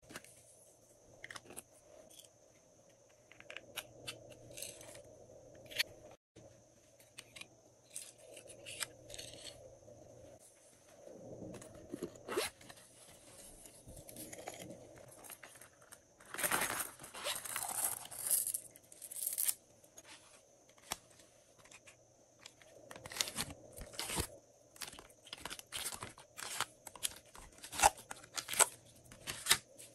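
Hands handling plastic slime add-ins: plastic ball capsules clicking open, foil tinsel glitter crinkling, and clear plastic slime containers being handled, giving a string of sharp clicks and crackles. About halfway through there is a longer, louder crinkling rustle.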